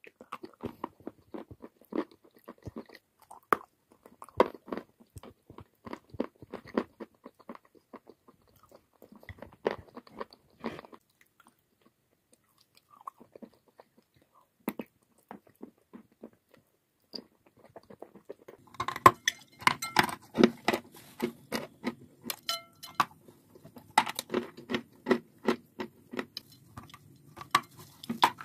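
Chalk and clay being bitten and chewed close up: many sharp, crisp crunches, thinning to a near pause about halfway. From about two-thirds in, denser and louder crunching runs over a steady low hum.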